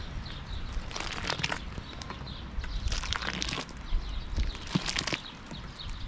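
Outdoor rural ambience: scattered crackles and knocks, with a few faint short bird chirps.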